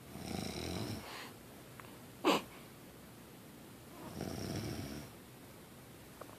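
A man snoring in his sleep: two long snores about four seconds apart, with a brief sharp breath noise between them, about two seconds in, that is the loudest sound.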